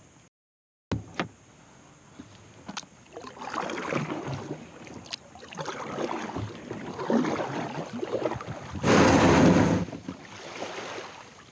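Water sloshing and splashing around a fishing kayak, with a few sharp clicks early on, and a strong gust of wind on the microphone about nine seconds in.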